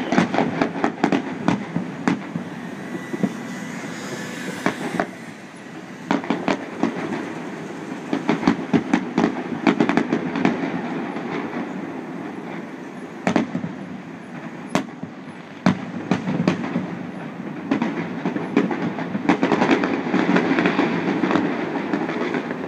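Fireworks going off: a continuous low rumble of booms with dense crackling pops and sharp cracks, in waves that thicken near the start, in the middle and near the end.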